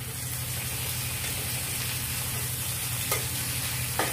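Turmeric-marinated pomfret sizzling steadily as it fries in mustard oil in a wok, over a steady low hum. Two short clicks near the end, about a second apart.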